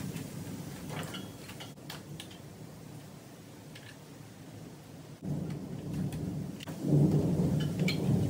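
Rustling and scraping of a plastic-sheathed engine wiring harness being pulled free and moved around the engine bay, with a few light clicks; it comes in uneven stretches and is louder near the end.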